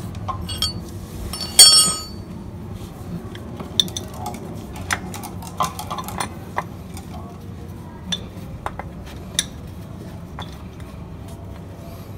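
Metal clinks and taps of hand tools and parts being worked on a car's underside, with one loud ringing metallic clang about a second and a half in, then scattered lighter clicks.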